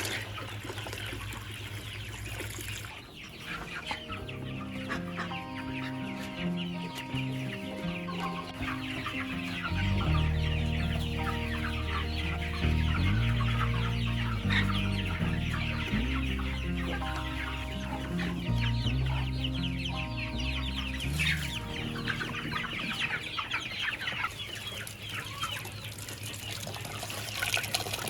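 A flock of chickens clucking and calling. From about three seconds in to around twenty-two seconds, soft background music with held low notes plays under them.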